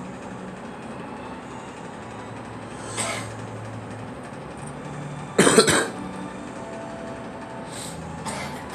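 A girl coughing: a short cough about three seconds in, then a louder burst of two or three coughs in quick succession a little after five seconds, and a faint one near the end.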